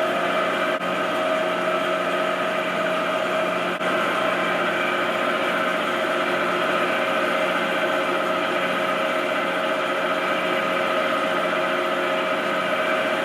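A motor-driven shop machine running at a steady speed, giving an even whir made of several constant tones.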